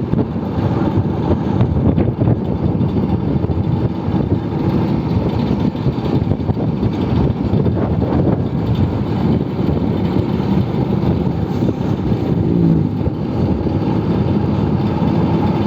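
Old Vespa scooter being ridden on the road: its engine running steadily under heavy wind rush on the microphone.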